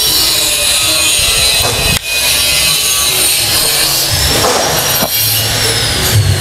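Construction noise: a power cutting tool running steadily under load, its high whine drifting up and down in pitch, with a short dip about two seconds in.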